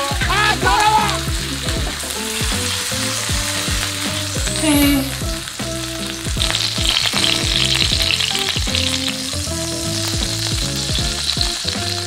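Thick tomahawk beef steak sizzling and frying in a pan, with background music playing underneath.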